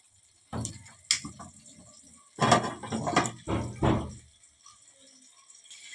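Kitchen handling noise at a stovetop pan: several short clatters and knocks with a few sharp clicks, irregularly spaced with quiet gaps between.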